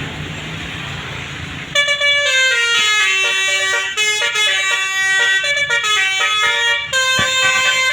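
A bus's basuri multi-trumpet musical air horn playing a quick melody of many stepping notes, loud, starting about two seconds in over a steady rush of road and engine noise.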